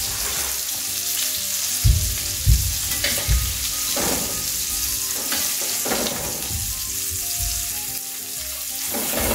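Egg-battered flounder fillets frying in butter and olive oil in a stainless steel sauté pan, a steady sizzle throughout. A few low knocks about two to three seconds in come as a metal spatula works under the fillets to lift them out.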